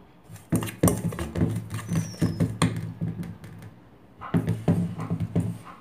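A steel spoon tapping and scraping against a steel mixing bowl of ground rice flour, in two runs of sharp clinks with a pause between, as salt and water are worked into the flour for puttu dough.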